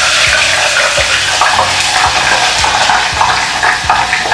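Hot frying oil being poured from a skillet into a saucepan: a steady, pouring stream.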